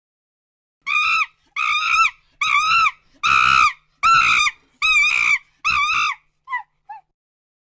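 Ape screaming in the manner of a chimpanzee: seven loud, high shrieks of about half a second each, in a steady series, then two short, fainter calls near the end.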